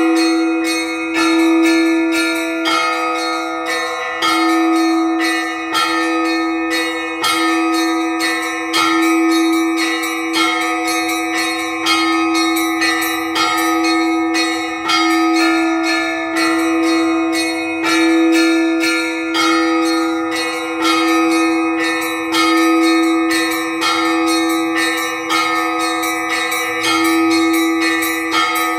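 Orthodox church bells rung in a simple repeating cycle: rapid strikes on the small high bells over a deeper bell's long ringing tone, with a heavier stroke about every second and a half.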